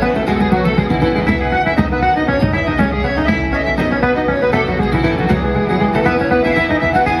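Irish traditional band playing a reel live: accordion carrying the melody with fiddle, over a steady driving beat from bodhrán and the strummed chords of guitar and banjo.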